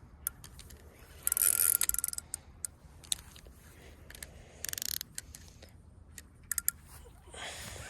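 Spinning reel ratcheting in two short bursts, with scattered single clicks between, as a hooked catfish is fought on a loosely set drag.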